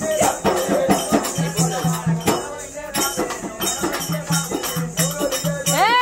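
Drum beaten in a rapid, driving rhythm with rattling jingle percussion, over the voices of a crowd. Near the end a voice lets out a call that rises and falls in pitch.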